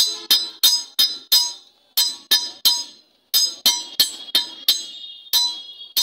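Blacksmith's hand hammer striking a blade held in tongs on an anvil: sharp, ringing metallic clangs about three a second, with two short breaks in the rhythm.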